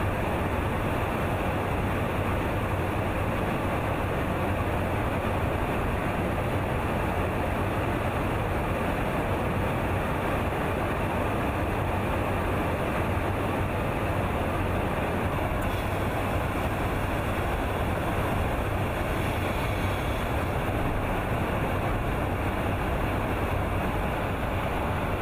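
Steady in-flight cabin noise inside a KC-135 Stratotanker's boom operator station: airflow and engine drone with a low hum underneath, unchanging throughout.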